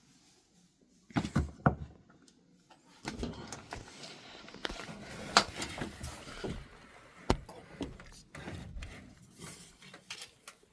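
Irregular knocks, clicks and rustling from pipe and fittings being handled and fitted together during a plumbing repair, with a few sharper knocks.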